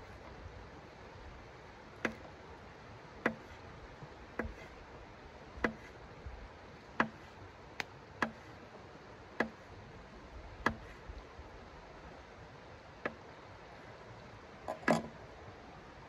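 Folding knife slicing through a sausage onto a hard tabletop. Each cut ends in a sharp click of the blade against the board, about one a second, about ten in all. Near the end there is a louder clatter as the knife is set down on the table.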